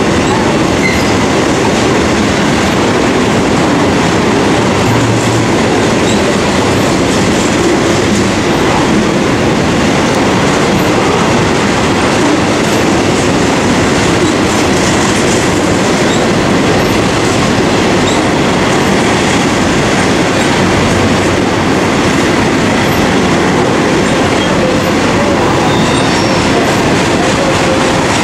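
Freight trains rolling past each other, an intermodal train of trailers on flatcars alongside a grain train of covered hoppers: a steady, loud rumble and rattle of steel wheels on the rails.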